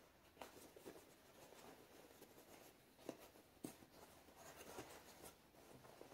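Faint rustling and scuffing of trouser fabric being handled as a knee pad is tucked into the knee pocket of 5.11 Stryke pants, with a few soft ticks, the sharpest about three and three and a half seconds in.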